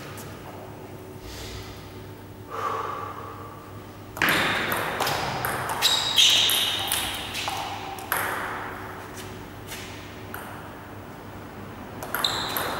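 Table tennis ball being hit back and forth with paddles and bouncing on a STIGA table, a series of sharp clicks that echo in a large hall. The hits start about four seconds in, are loudest around six seconds, come again at about eight, and a new rally starts near the end.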